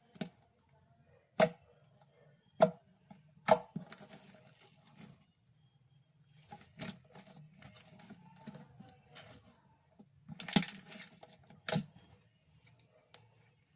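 Slime with foam beads being squished and worked by hand: a few sharp pops and clicks over faint crackling and rustling.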